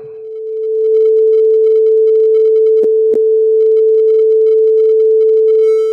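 Steady 440 Hz sine test tone, clean and unclipped: a pure, even hum that fades in over the first second and fades out near the end. It is the reference tone for judging when an amplifier starts to clip. Two faint clicks come just under three seconds in.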